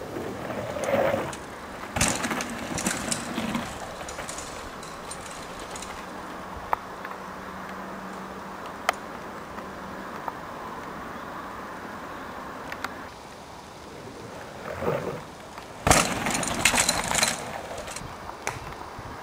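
Mountain bike passing over dirt trail and wooden ramps: tyre noise and chain and frame rattle with sharp knocks, louder clattering about two seconds in and again from about fifteen to seventeen seconds, over a steady hiss.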